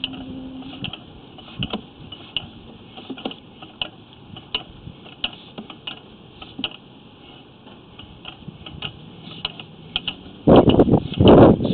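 Sewer inspection camera and its push cable being fed through a sewer lateral, giving irregular clicking and ticking. A loud rushing noise starts near the end.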